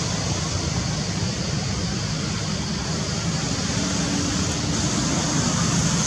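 Steady rushing outdoor background noise: a low rumble under a high, even hiss, with no distinct calls or knocks.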